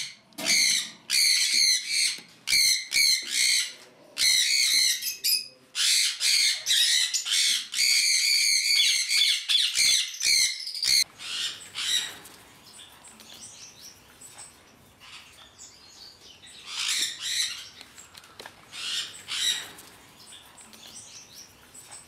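Sun conures screeching loudly and repeatedly, harsh high calls following one another closely. About eleven seconds in this gives way to a much quieter stretch with a few thin chirps from small finches.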